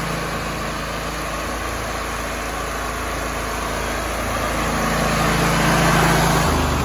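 Kohler engine of a Vermeer SC292 walk-behind stump grinder running steadily at high throttle, growing somewhat louder near the end.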